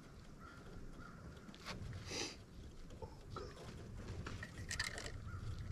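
Spawning carp splashing in shallow weedy water: one splash about two seconds in and a short cluster of splashes near the end, over a steady low rumble.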